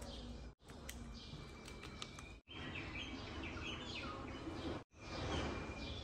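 Small birds chirping and calling, many short high chirps and whistles over a steady low background hum. The sound cuts out abruptly for a split second three times.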